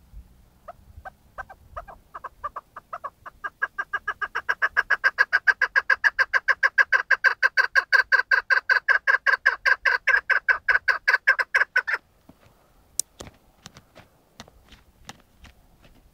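Chukar partridge calling: a long run of clucking chuk notes that starts slowly, speeds up and grows louder to about six a second, then stops abruptly. A few scattered clicks follow.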